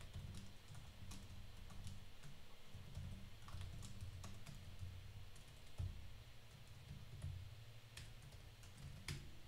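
Typing on a computer keyboard: a steady run of faint key clicks over a low hum, with one sharper keystroke near the end.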